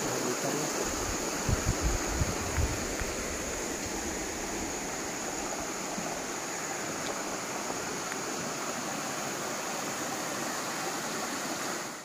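Shallow rocky forest stream running over stones in a steady rush of water, with a few low bumps in the first three seconds.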